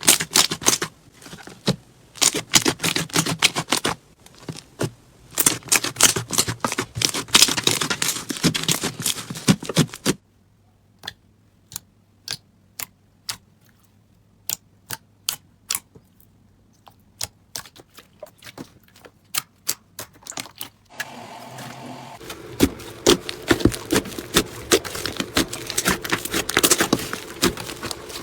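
Crunchy slime being squeezed and pressed, crackling and popping in quick sharp clicks. Dense crackling thins to scattered single pops about ten seconds in, then turns dense again over a faint steady background near the end.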